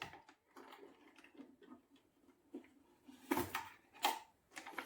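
Faint clicks and handling noises as wire connectors are pulled off a party speaker's amplifier board, with two louder knocks about three and a half and four seconds in.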